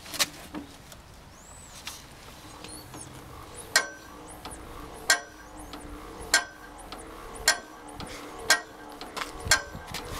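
Armstrong Siddeley ASH1 single-cylinder diesel engine being hand-cranked on its starting handle, giving a sharp click about once a second that comes quicker near the end. The engine does not fire.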